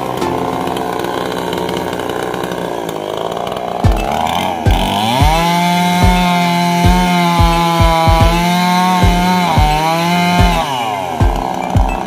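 Chainsaw engine running, then opened up to full throttle about four seconds in and held at a high, steady pitch for several seconds while cutting tree branches, before dropping back near the end. Low thumps recur throughout the high-revving stretch.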